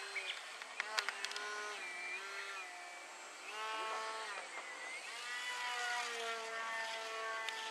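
Electric motor and propeller of a radio-controlled aerobatic model plane whining overhead, the pitch sweeping up and down as the throttle changes. A few sharp clicks come about a second in.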